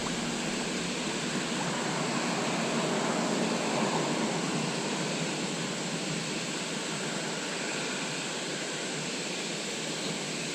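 Steady rushing of flowing stream water, an even hiss with no change.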